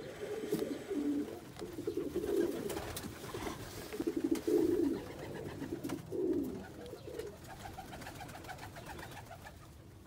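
Lebanon pigeon cock on his nest cooing in low, repeated bouts, busiest in the first half and dying away after about seven seconds.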